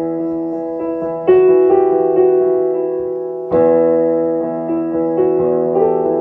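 Slow piano chords played on a keyboard, each chord held and left to ring. Fresh chords are struck about a second in and again midway.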